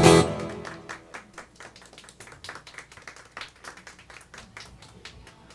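A small audience applauding after a live song: a brief loud pitched sound at the very start, then clapping that thins out to scattered claps and fades by the end.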